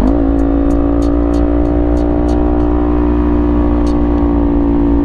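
Kawasaki Ninja 400's parallel-twin engine running through a Leo Vince GP Corsa exhaust while riding: the revs dip and pick up again right at the start, as after a gear change, then hold steady at cruising speed.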